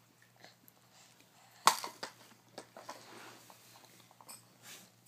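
Hard plastic of a Fisher-Price stacking-ring toy knocking and clattering as it is handled: one sharp, loud knock about a second and a half in, then a string of lighter taps and clicks.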